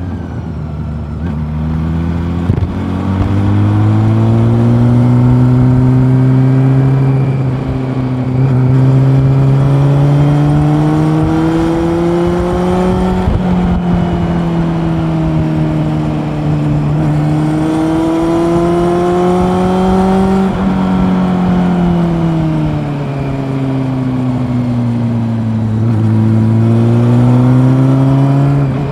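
Honda CB400 Super Four's inline-four engine heard from the moving bike, its revs rising and falling as the throttle opens and closes, with several sudden drops in pitch at gear changes.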